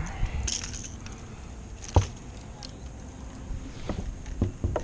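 Handling noise from fishing tackle in a plastic kayak: one sharp knock about two seconds in, then a quick run of clicks and taps near the end.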